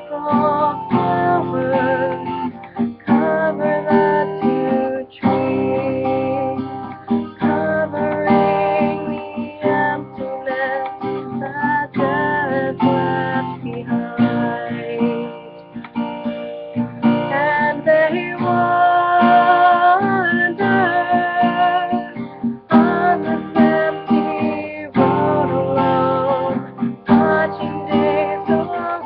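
Acoustic guitar strummed as song accompaniment, with a voice singing a wavering melody over it.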